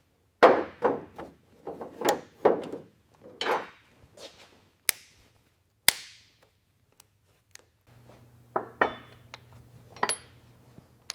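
Hand-tool work on metal parts: an irregular series of sharp clicks and knocks, some ringing briefly, with a faint low hum coming in near the end.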